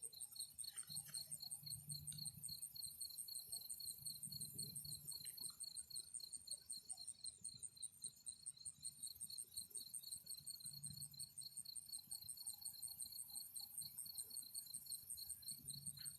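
Crickets chirping at night: a faint, steady, high-pitched pulsing trill that keeps up without a break.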